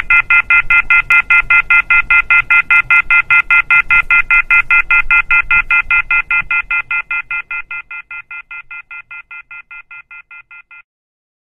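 Telephone receiver off-hook warning tone: a loud, rapid electronic beeping, about five beeps a second, that fades from about six seconds in and stops abruptly near the end.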